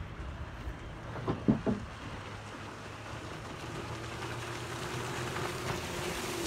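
Cabin motorboat running at speed and coming closer, its engine drone growing steadily louder through the second half over wind and water noise. About a second and a half in, a brief loud sound of two or three quick falling notes.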